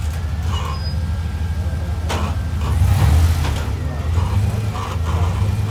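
Rock-crawler buggy's engine running with a low, steady rumble as it works up a near-vertical sandstone ledge, with one sharp knock about two seconds in.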